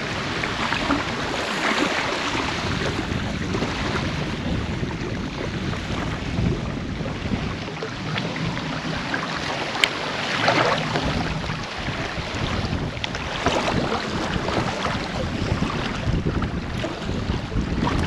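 Wind buffeting the microphone over small lake waves lapping on a sandy shore, the wash swelling up every few seconds.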